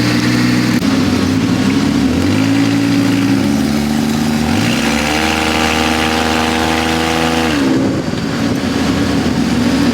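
ATV engine accelerating in repeated pulls, its pitch climbing three times, then held steady for a couple of seconds before dropping back near the end, over wind and trail noise.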